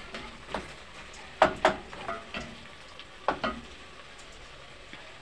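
Wooden spoon stirring beef stew and potatoes in a granite-coated pot, knocking against the pot several times, the two loudest knocks close together about a second and a half in. A faint sizzle of the stew frying runs underneath, left on its own once the stirring stops about three and a half seconds in.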